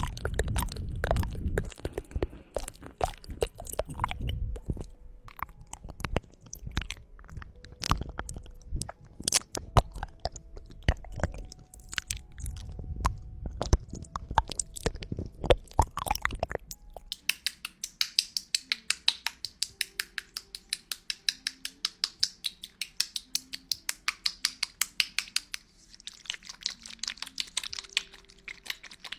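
Close-miked ASMR mouth sounds: wet tongue clicks and smacks, dense and irregular. About two-thirds of the way through they give way to a fast, even run of crisp clicks, about five a second, over a light hiss.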